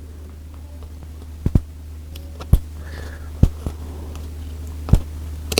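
Steady low electric hum of a sewing machine motor, with a few sharp clicks at irregular intervals, about a second apart, as the seat-cover material is worked and cut by hand.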